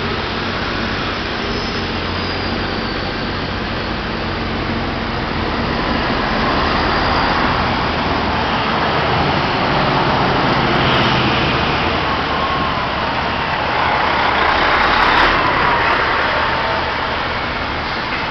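Road traffic on a busy boulevard: a steady wash of car and bus noise that swells as vehicles pass, loudest about fifteen seconds in.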